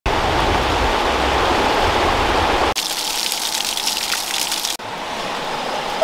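Shallow, rocky river water rushing over stones. It changes abruptly twice, with a hissier, splashier stretch in the middle.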